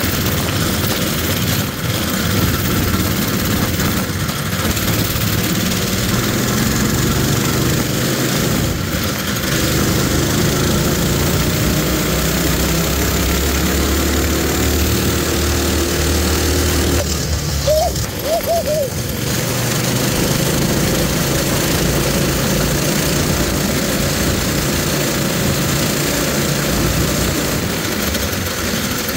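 Coleman mini bike's small single-cylinder four-stroke engine running under throttle while riding, its pitch shifting with the throttle. It eases off briefly about two-thirds of the way through, then picks up again, over a steady hiss.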